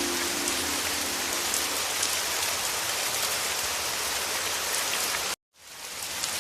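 Heavy rain falling steadily, a dense even hiss with scattered drop taps. About five seconds in it cuts out abruptly to silence for a moment, then fades back in.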